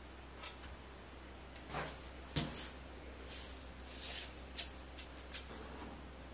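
Light kitchen handling sounds: a fried egg slid off a dark pan onto a bowl of bibimbap vegetables, with one dull knock a couple of seconds in. About four seconds in comes a short rattle and then a few sharp clicks as sesame seeds are shaken from a plastic shaker.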